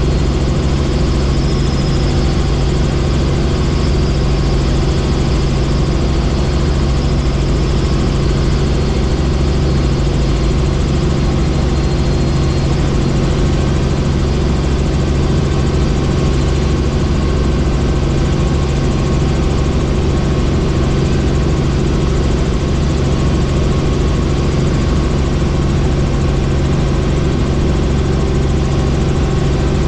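A helicopter in flight: its engine and rotor make a steady, even drone, with a faint high whine over the first dozen seconds or so.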